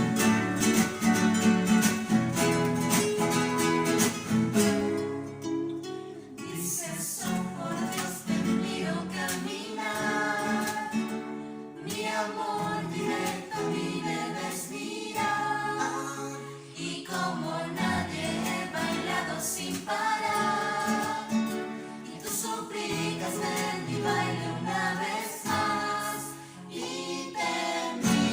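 Rondalla performing: strummed acoustic guitars, with a group of voices singing in chorus over them after the first few seconds.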